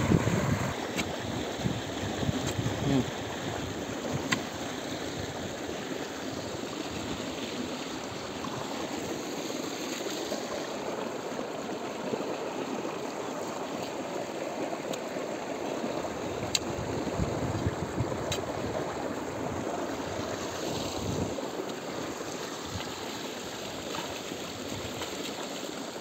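Steady rush of irrigation water running from a pipe along a shallow field channel, with wind on the microphone. A few sharp clicks are heard now and then.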